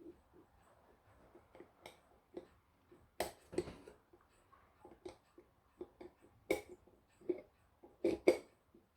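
Scattered light clicks and taps of small clock parts and tools being handled, irregular, with sharper knocks about three seconds in, at six and a half seconds, and twice near the end.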